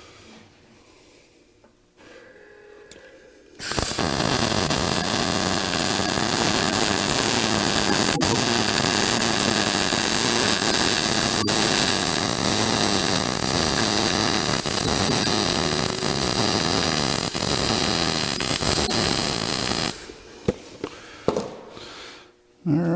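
MIG welder arc running a weld bead on steel tubing: a loud, steady noise that starts about four seconds in and stops abruptly about twenty seconds in.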